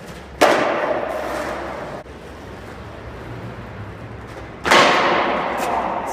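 Skateboard slapping down hard on concrete twice, about four seconds apart, each impact ringing out and fading slowly in a reverberant concrete parking garage; a short sharp clack follows the second one.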